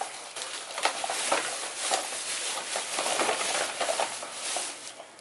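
Plastic-wrapped fruit snack pouches crinkling and rustling as they are handled and counted, with many irregular crackles.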